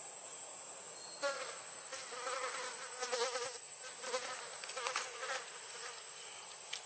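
A flying insect buzzing near the microphone in several short passes with wavering pitch, starting about a second in and stopping a little after five seconds, over a steady high hiss.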